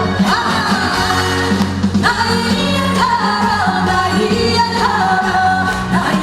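A woman singing a Korean trot song live, with sustained notes, vibrato and slides, over a steady band accompaniment.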